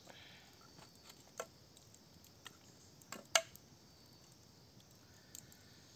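A few sharp clicks and light knocks, the loudest a little past halfway, over a faint steady high hiss.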